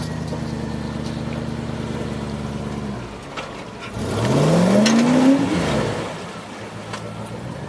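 Off-road 4x4's engine running at steady revs, easing off about three seconds in. It then revs up hard with its pitch climbing, together with a rush of noise that is the loudest moment, before dropping back to a steady low run.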